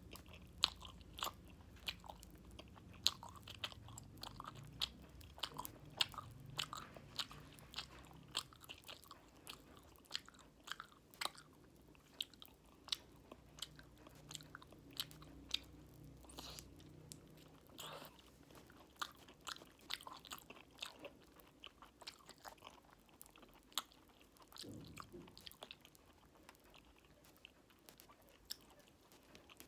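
Close-up mouth sounds of eating fruit jelly with popping candy: chewing, with many small sharp crackles and clicks, several a second.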